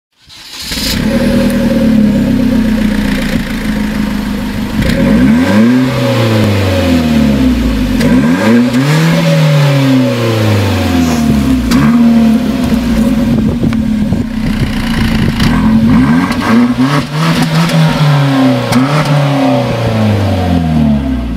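Hyundai Genesis 3.8-litre V6 on its stock exhaust, idling and then revved several times. The pitch climbs and falls back with each rev before settling to idle again.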